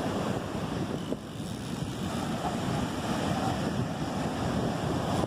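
Steady wind buffeting the microphone over the wash of breaking surf.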